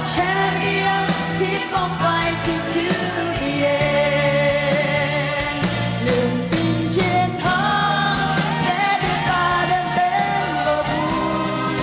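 Vietnamese pop song with singing over a band and a steady beat.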